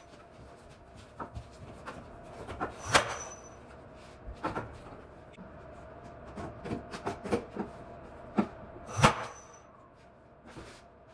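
Nails being driven into wooden boards: scattered light taps and two loud, sharp strikes about three and nine seconds in, each with a brief high metallic ring, over a faint steady hum.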